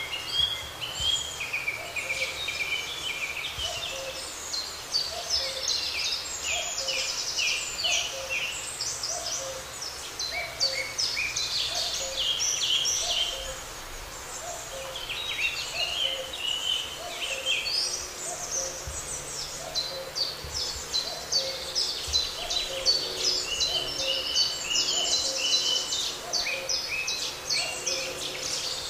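Several songbirds singing over one another in a spring chorus of high, twittering phrases. Under them a lower hooting call repeats about once a second. The songs thin out briefly about halfway through.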